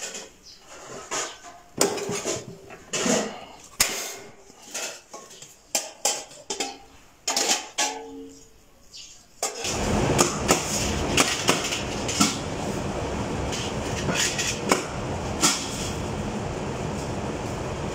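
Copper pieces and small copper bowls clinking and clattering in irregular knocks as they are handled. About halfway through, a loud steady workshop noise starts, with more metal taps over it.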